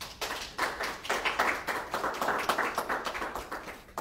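Audience clapping after a spoken word poem, dying away near the end.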